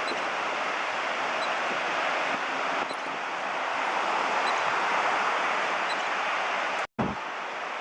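Steady hiss of ocean surf breaking and washing in, swelling slightly partway through; the sound cuts out for an instant near the end.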